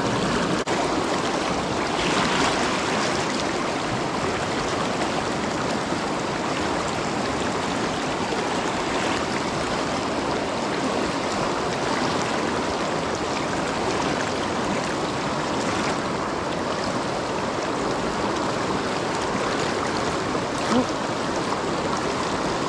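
Steady rushing of a fast, shallow mountain river pouring over rocks.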